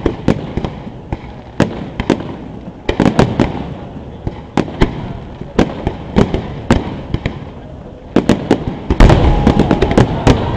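Aerial firework shells bursting overhead as sharp bangs at irregular intervals, one or two a second. About eight seconds in, the bursts come thicker and louder over a continuous rumble.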